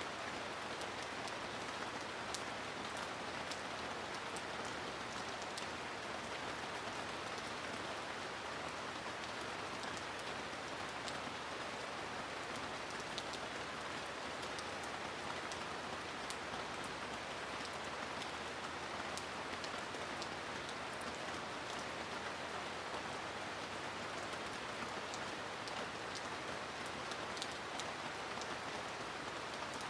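Steady rain falling on a surface, with many fine drop ticks over an even hiss.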